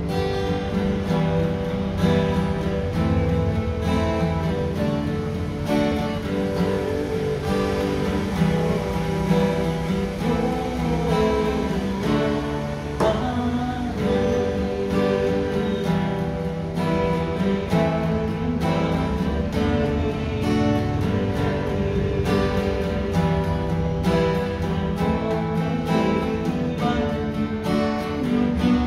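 Three acoustic guitars playing a tune together, strummed chords in a steady rhythm.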